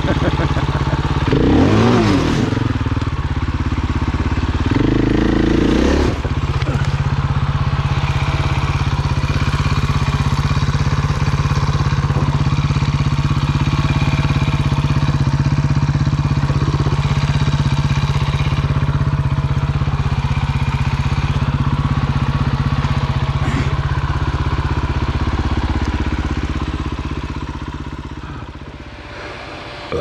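Dirt bike engine revving up and down unevenly for the first six seconds or so, then running steadily at one even pitch, and dropping away over the last few seconds.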